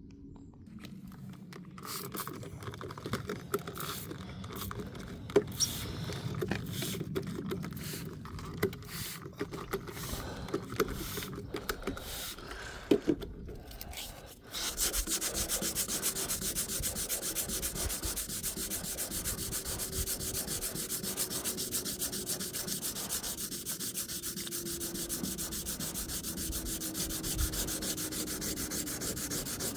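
Rubbing and scraping on a car body panel during scratch repair. The first half is irregular scrapes with a few sharp knocks; about halfway through it changes to a steady, fast rasping.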